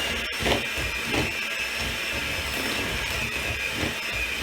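Electric mixer running steadily, its beaters working butter, sugar and eggs into a creamed batter.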